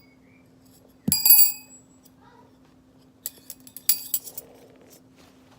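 Metal magic linking rings clanking together: one sharp ringing clank about a second in, then a run of lighter metallic clinks between about three and four seconds in.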